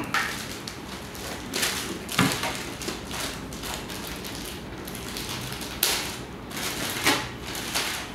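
Packaging being handled: rustling and crinkling of a laptop's protective sleeve as it is lifted out of its box and opened, with a few sharp knocks about 2, 6 and 7 seconds in.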